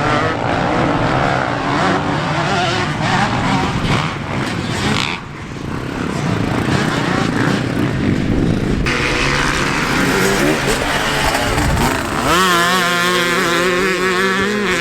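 Motocross bike engines running and revving. From about twelve seconds in, one engine close by holds a steady but wavering pitch.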